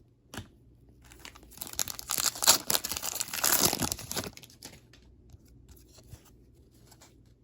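A foil trading-card pack being torn open and its wrapper crinkled, a dense crackle lasting about three seconds from about a second and a half in, after a single short click.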